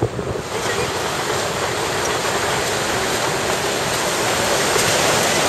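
Shore-break surf breaking and washing up the beach: a steady rushing noise that swells slightly over the last seconds.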